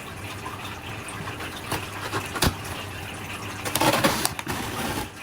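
Gift packaging being handled and opened: rustling and scraping with a couple of sharp knocks, loudest about four seconds in.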